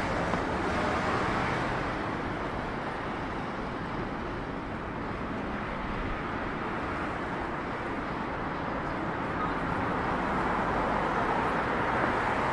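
Steady city traffic noise: cars running along the road, a continuous even rumble with no single vehicle standing out.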